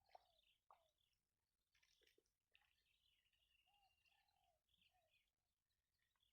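Faint bird calls: high chirps, a few short low arched notes and one held high note in the middle, with a couple of light clicks near the start.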